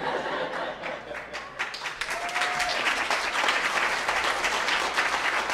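Wedding guests applauding, a steady dense clapping from a room of people.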